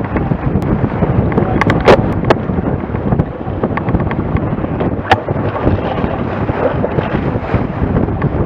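Water rushing and churning along the hull of a sailing yacht driving fast and heeled, under heavy wind buffeting on the microphone. A few sharp knocks cut through, the loudest about two seconds in and another about five seconds in.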